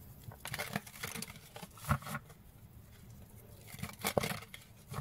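A deck of cards being shuffled by hand: soft rustling and light card snaps, with a couple of sharper clicks about two seconds in and around four seconds.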